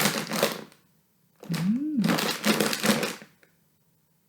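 A bag of crisps being crunched and crinkled, in two spells of crackling: a short one at the start and a longer one from about a second and a half in.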